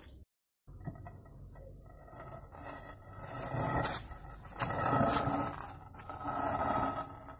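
Gritty scraping of concrete on concrete paving, in several long strokes that grow louder about halfway through: a heavy concrete curbstone being dragged over the paving slabs.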